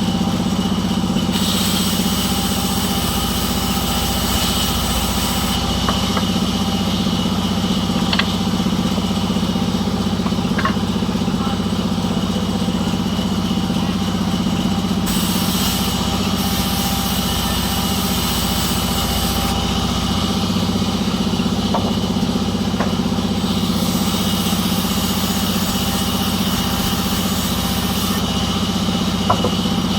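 An engine running steadily at an even idle, with a few faint knocks over it.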